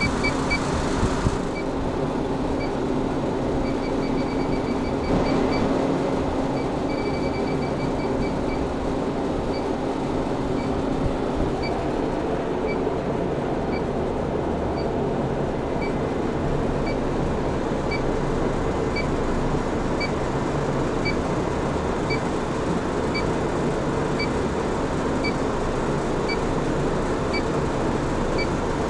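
Refrigeration condensing unit running with a steady mechanical hum. Over it, an electronic refrigerant leak detector ticks with short high pips: quick runs of fast ticking a few times in the first several seconds, then a regular tick about once a second.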